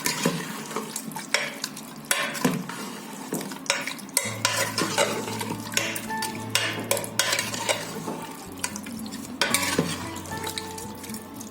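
A spoon stirring a pot of mutton, onions and tomatoes in water and oil, with repeated scraping and clinking against the pot.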